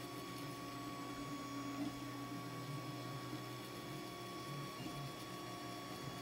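3D printer running: a steady hum with several faint, even whining tones that break off briefly now and then.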